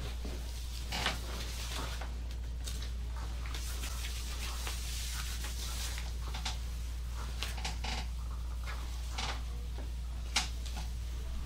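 Hands rubbing and kneading the back in a massage: irregular rustling, brushing strokes over skin and fabric, with a sharp click about ten seconds in, over a steady low hum.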